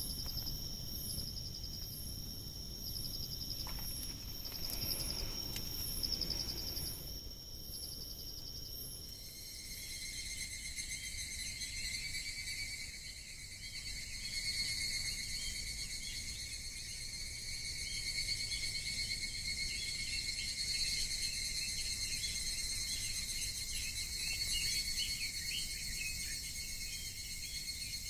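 A chorus of crickets and other insects trilling at several pitches at once, some in a slow pulsing rhythm. About nine seconds in, the mix of trills changes.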